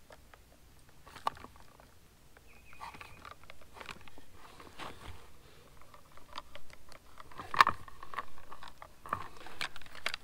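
Scattered light clicks, knocks and handling noise from a bent metal antenna radial rod being bent straight by hand. The sounds grow busier in the second half, with one sharp click about seven and a half seconds in.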